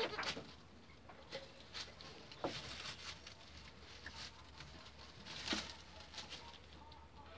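Light, scattered taps and rustles as newborn goat kids move about on straw bedding, with a slightly louder knock about five and a half seconds in.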